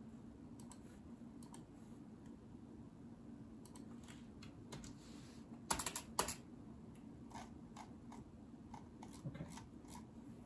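Scattered light clicks of a computer keyboard and mouse as text is copied and pasted, with two louder clicks about six seconds in, over a low steady hum.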